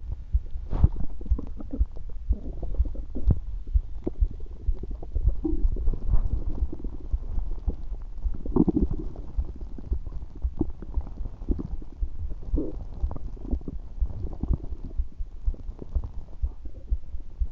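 Stomach gurgling and rumbling: a constant run of irregular low pops and squelches, with longer watery gurgles every few seconds.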